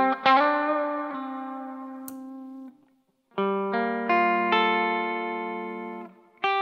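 Electric guitar played through a T-Rex FatShuga overdrive and reverb pedal: picked chords and notes left to ring and fade, in two phrases split by a short pause about three seconds in, with a new phrase starting near the end.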